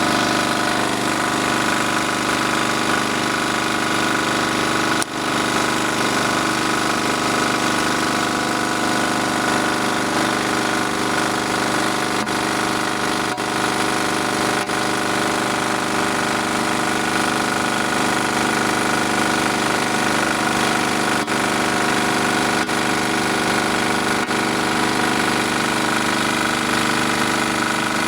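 Small generator engine, converted from gasoline to run on hydrogen at atmospheric pressure that it draws in by itself, running steadily at constant speed. Its loudness dips briefly about five seconds in.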